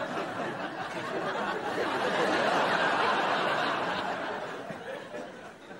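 Studio audience laughing, swelling to a peak about three seconds in and then dying away.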